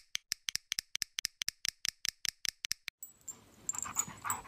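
A quick run of sharp, evenly spaced clicks, about five or six a second, for about three seconds. Then a dog panting and snuffling close up.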